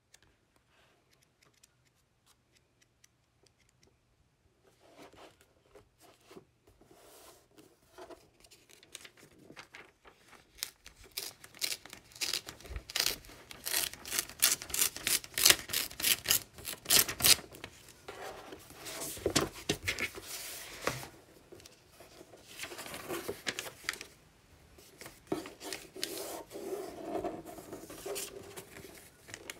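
Glossy magazine paper handled close to the microphone: after a few quiet seconds, pages rustle, then a page is torn out along the spine in a long run of rapid rips about halfway through. The loose sheet is then rubbed and creased flat as it is folded on a wooden tabletop.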